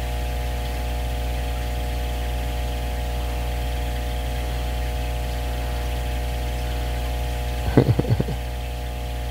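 Steady hum of fish-room aquarium equipment, a low drone with several steady tones over it. A quick cluster of short knocks comes about eight seconds in.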